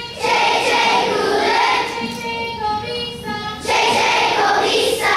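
A group of young children singing together in held, pitched notes, swelling louder twice: just after the start and again about two-thirds of the way through.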